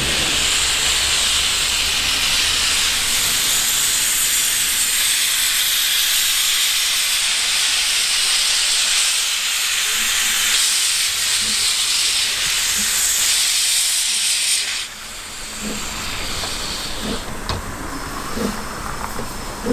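Double Fairlie steam locomotive hissing steadily and loudly as it moves off with its cylinder drain cocks open. About fifteen seconds in the hiss cuts off suddenly, and quieter, soft exhaust beats follow as the locomotive keeps moving.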